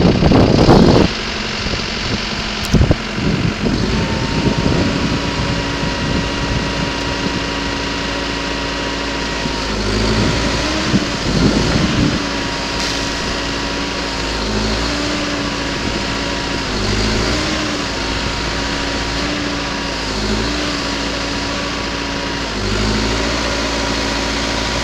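Caterpillar 420E IT backhoe loader's diesel engine running steadily while the backhoe boom and bucket are worked. From about ten seconds in, the engine note dips briefly every two to three seconds as the hydraulics take load.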